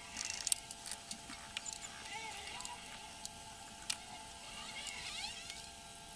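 Hands handling and rubbing a polished Yamaha RX100 aluminium engine side cover on a workbench: scattered light clicks and scrapes over a faint steady hum, with a few short chirps in the background.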